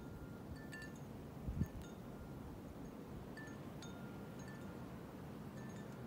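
Wind chimes ringing faintly now and then, a few scattered high notes, some ringing on for about a second, over a steady low rush of wind.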